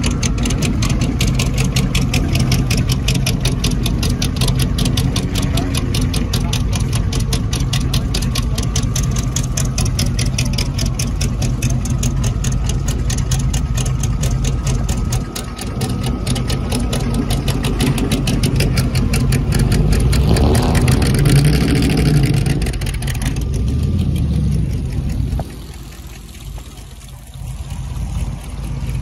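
A 1950s Cunningham sports-racing car's engine idling loud and lumpy, with a fast, even beat. About twenty seconds in, an engine is revved and a car pulls away. The sound falls off sharply a few seconds before the end.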